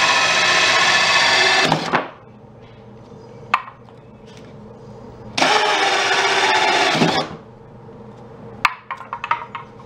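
Electric drill boring holes in a wooden support board. It runs for about two seconds and winds down, then runs again in a second burst of under two seconds about halfway through. A few light knocks and clatters come in between.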